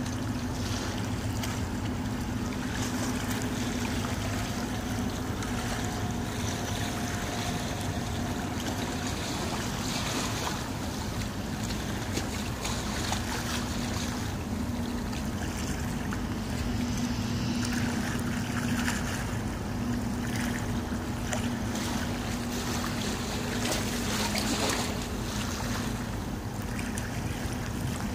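Low, steady hum of a large container ship's engines as it passes close by, with wind buffeting the microphone.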